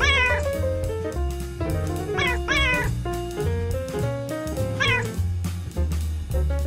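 A cat meowing four times over background music with a bass line: one meow at the start, two in quick succession a little after two seconds in, and one about five seconds in.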